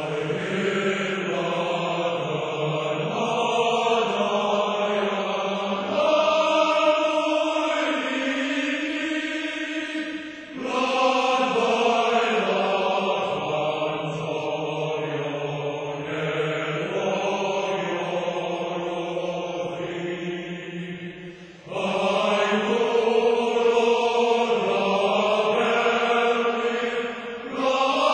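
A choir of voices singing together in long held notes, in phrases with short breaks between them.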